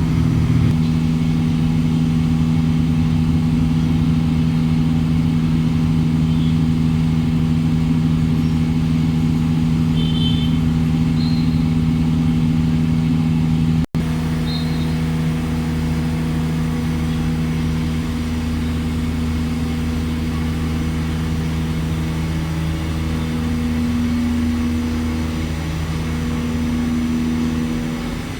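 CNC machine running with a steady, even hum that drops out for an instant about halfway through, then carries on.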